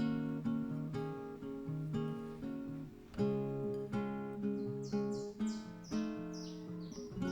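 Background music of plucked and strummed acoustic guitar, note following note at an even pace. From about halfway through, a run of short, high, falling chirps sounds over it.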